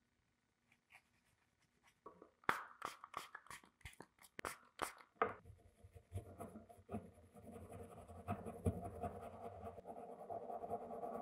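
Stiff paintbrush bristles scrubbing dust off an old drill's motor parts. First come quick separate flicking strokes, about three a second, then from about halfway a steady scratchy scrubbing that slowly gets louder.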